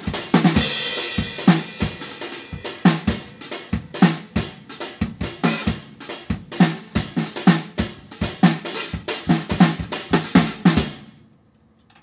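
Rock drum kit played hard and fast: rapid kick and snare strikes under hi-hat and crash cymbals, with a cymbal crash near the start. The playing stops suddenly about eleven seconds in.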